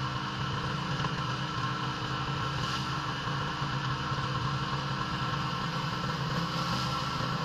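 Pressure washer's engine running steadily at an even pitch, with a constant hiss over it.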